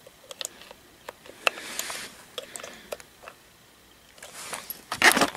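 Small scattered clicks and scrapes of a metal tool probing the battery contacts in a plush toy's battery compartment, with a louder rustle of fabric near the end.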